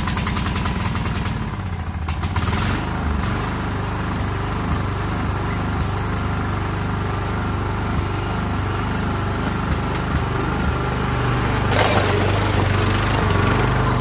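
Ariens Zoom 1840 zero-turn mower's 18 hp Kohler engine running steadily, its note shifting about two seconds in. A single clunk comes near the end as the mower is driven off the trailer.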